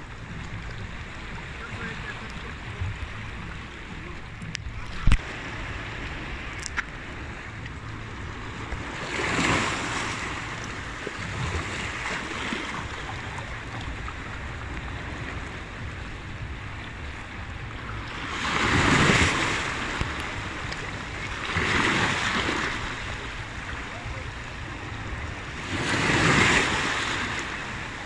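Seawater surging into a narrow gully between rocks and draining back, over a steady wash of surf. Four waves rush in and splash, about ten, nineteen, twenty-two and twenty-six seconds in. There is a single sharp knock about five seconds in.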